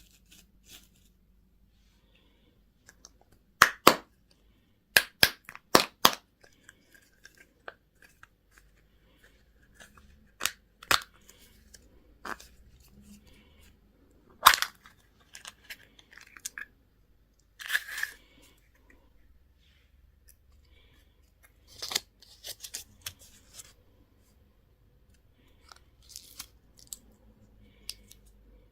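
Plastic candy and toy packaging handled close up: sharp cracks and crinkles of wrappers and plastic being torn and snapped open, in scattered clusters with quiet rustling between.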